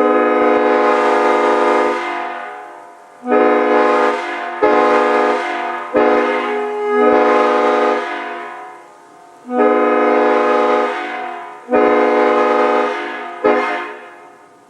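Leslie five-chime locomotive air horn sounded in about seven blasts, some long and some short, each a chord of several steady notes that sags slightly in pitch as the blast trails off.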